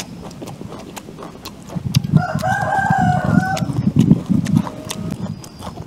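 A rooster crows once, about two seconds in, a call lasting about a second and a half. Underneath, close crunchy chewing of raw vegetables.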